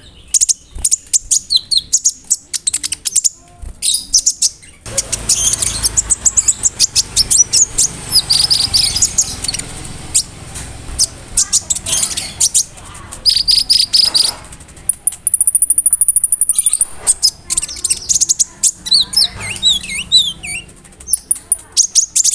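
Brown-throated sunbird (konin) singing hard: rapid sharp chirps, fast ticking trills and shrill whistled phrases, its song laced with mimicked calls. Past the middle comes one even, very high trill lasting about two seconds.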